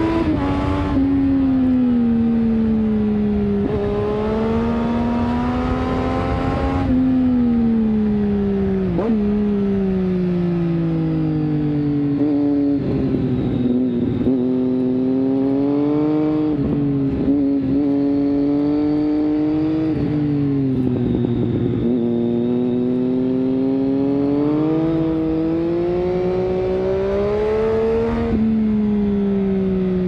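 Triumph Street Triple 675's inline three-cylinder engine through an Arrow 3-2 exhaust with dB-killer, heard from the rider's seat while riding. The revs climb and fall repeatedly as the bike accelerates and rolls off, and the pitch drops suddenly at gear changes several times, once clearly near the end.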